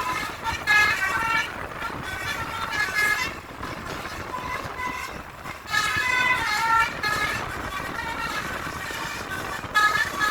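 Telolet bus horns playing quick multi-note melodies in repeated spells, with a quieter lull in the middle, over low traffic noise.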